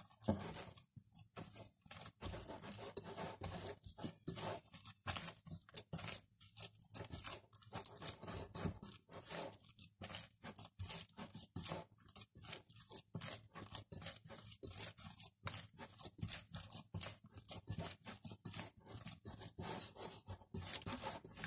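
A hand kneading soft, freshly oiled yeast dough in a glass bowl: faint, irregular sounds of the dough being squeezed and pulled, a few strokes a second.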